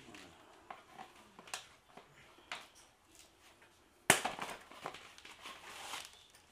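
Hands working on a Lectric XP 3.0 e-bike during assembly: scattered small clicks and knocks from parts and fittings, then one sharp, loud knock about four seconds in followed by a couple of seconds of rattling and rustling.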